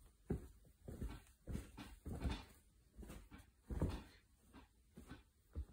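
Stuffed plush monkey being shaken and bashed about by hand, giving soft, irregular thumps and fabric rustles close to the microphone, about two a second.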